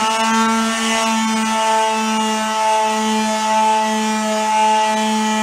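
Electric palm sander running at a steady speed with a constant motor hum, its pad rubbing 320-grit paper over a bare wooden drum shell.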